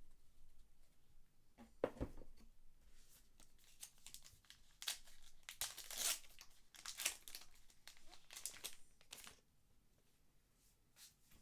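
Trading-card pack wrapper being torn open and crinkled in a run of rustling rips, after a thump about two seconds in.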